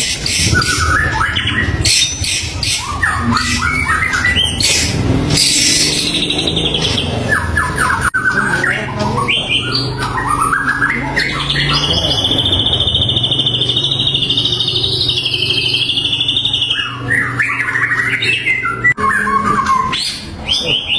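White-rumped shama (murai batu) in full song: a varied string of whistled phrases and harsh scratchy notes, with a long steady trill in the middle.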